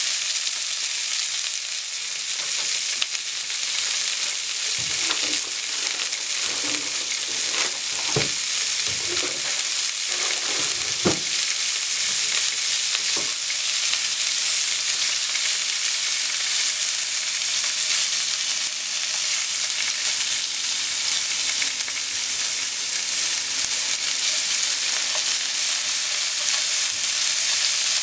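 Pork-wrapped potato sticks frying in a pan, a steady sizzle, with a few soft knocks between about five and thirteen seconds in.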